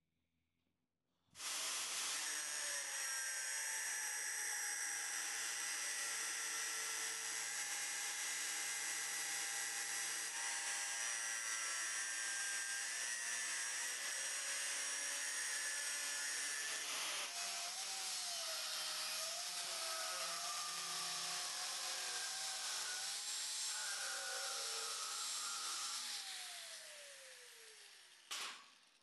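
Angle grinder with an abrasive cut-off disc cutting through steel threaded rod: a steady high whine with grinding hiss that starts about a second in. Near the end its pitch falls away as the disc winds down.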